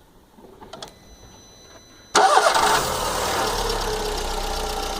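Volkswagen Fox 1.6 four-cylinder engine started: a few faint clicks about a second in, then about two seconds in it cranks, catches with a brief flare and settles into a steady idle. The start is to show that the hydraulic lifters no longer tap now that the manufacturer's 5W40 oil is in.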